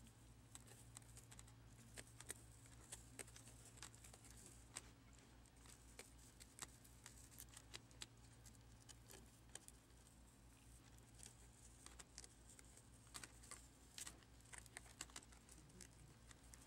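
Faint, irregular light clicks and ticks of a small hand tool and fingers picking at a laptop screen's edge, peeling off strips of rubber adhesive, over a steady low hum.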